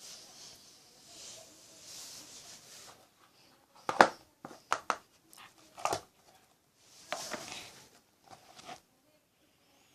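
Coughing: rasping, breathy sounds, then a run of sharp coughs from about four to six seconds in, the first the loudest, followed by more raspy breaths.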